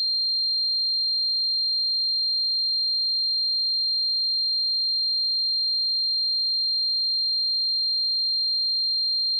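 A steady, high-pitched pure tone, the synthesized ringing of a tinnitus simulation, held at one pitch and level without a break.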